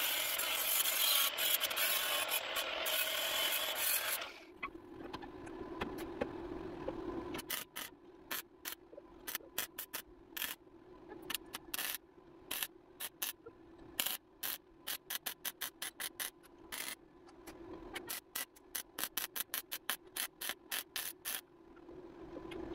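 Arc welding on the sheet steel of an International Scout's front end: a continuous crackling weld for about four seconds, then, after a pause, a long run of short crackling bursts, about three a second, as the panel is stitch-welded in quick pulses. A steady low hum runs underneath.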